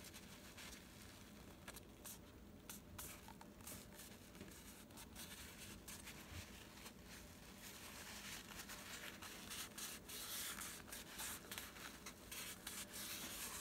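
Paper towel rubbing and wiping oil residue off the KitchenAid mixer's stainless steel bowl-locking plate: faint, scratchy wiping strokes that grow busier and louder over the last few seconds.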